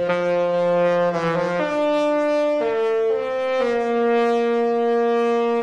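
Disney Wish cruise ship's melody horn playing a tune. Several horn notes sound at once in a run of held chords that change pitch about six times, then cut off abruptly near the end.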